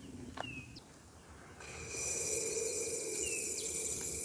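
A bird gives a short downslurred chirp twice, about three seconds apart. From a little under halfway, a steady high hiss with a thin ringing tone comes in and is the loudest sound.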